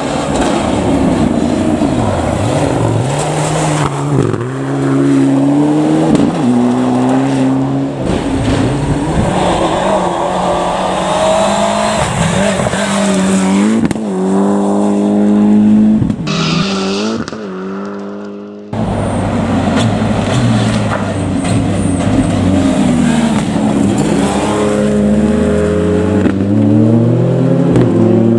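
Rally cars at full throttle on a loose gravel stage, heard in a run of separate passes. The engines rev up and drop sharply through quick gear changes, over the noise of tyres on gravel.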